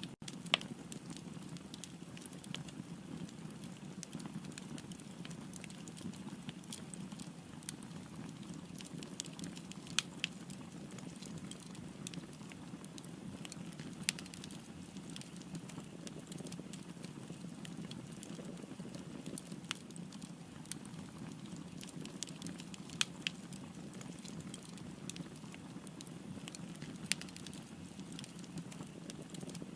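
Wood fire burning: a steady low rumble of flames with sharp crackles and pops scattered irregularly throughout, a handful of them louder snaps.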